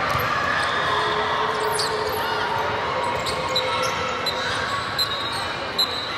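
Indoor volleyball rally in a large hall: sharp ball contacts about three times in the second half and short shoe squeaks on the court, over a steady murmur of spectators' and players' voices.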